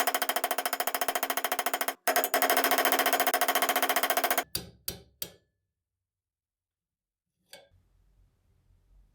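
Rapid rattling run of metal-on-metal impacts, about fifteen a second, that stops briefly and starts again, then three single knocks and a faint click near the end.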